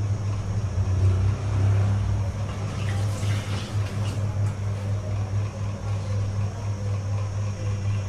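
Steady low electric hum of a running table fan motor, with a few faint light taps from glassware about three to four and a half seconds in.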